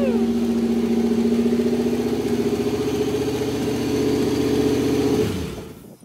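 Nissan 240SX (S14) engine running steadily, just brought back to life after a no-start caused by a blown fuel pump fuse; it stops about five seconds in.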